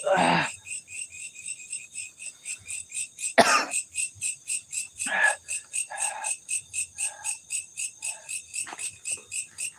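Night insects chirping in a steady pulse, about five or six high chirps a second, with a brief sharp noise about three and a half seconds in.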